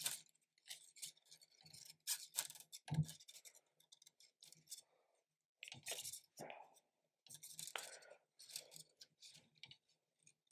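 Faint, irregular scratching and clicking of hands pushing plastic 3D-printer filament through its feed tube and extruder, with a dull knock about three seconds in.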